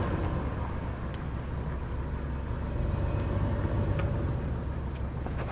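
Off-road 4x4's engine running low and steady as the vehicle crawls over a rock step, with a couple of faint clicks.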